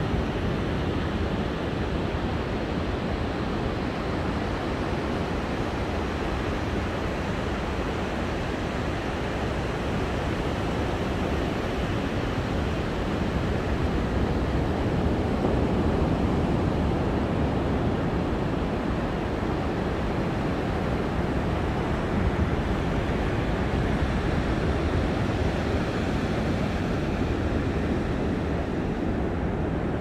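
Sea surf breaking and washing up a sandy beach: a steady rush of waves, swelling slightly a few times.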